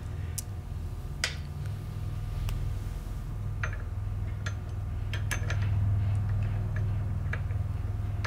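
Scattered light metallic clicks and taps as the steel clevis of a Ford tractor brake rod is fitted onto the brake lever by hand, over a steady low hum.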